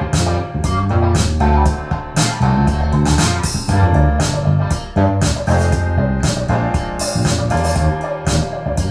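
Music with a steady drum beat over bass and keyboards, played back loud as a demonstration of a stereo amplifier.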